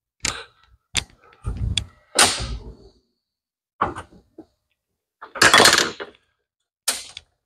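Irregular knocks and clunks of tools working at a stubborn valve cover stuck to a Ford 2.3 four-cylinder engine, about eight separate hits; the heaviest come about two seconds in and midway through.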